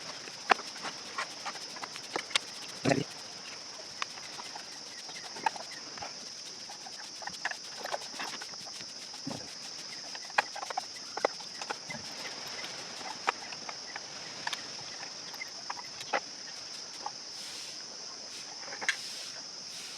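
Scattered clicks and taps of a plastic Bluetooth speaker casing being handled and opened up, over a steady high-pitched whine.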